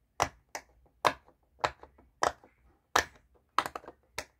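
Blue silicone unicorn-shaped pop it fidget toy having its bubbles pressed one at a time by fingers, each giving a sharp pop, about ten pops at an uneven pace.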